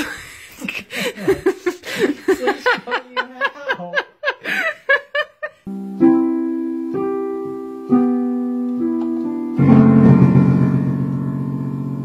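A rapid string of short, high, sliding voice-like sounds, then piano chords from about halfway through: single held chords, then a fuller low chord near the end that is left ringing.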